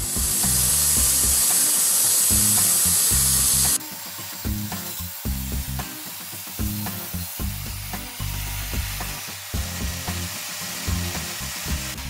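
Background music with a steady beat runs throughout. For about the first four seconds a loud, even hiss plays over it, a portable band sawmill's blade cutting through a Ponderosa pine log, and the hiss cuts off suddenly.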